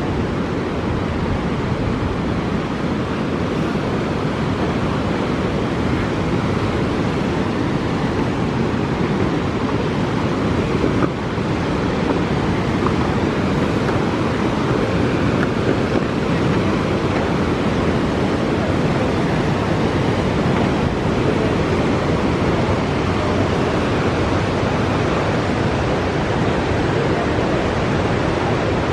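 River water rushing below, a loud, steady, even roar of noise that does not change.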